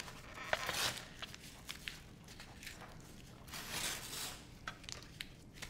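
Light clinks of a ceramic bowl and teapot set down on a tray. About three and a half seconds in comes a short, soft trickle of tea poured from the teapot over rice in the bowl.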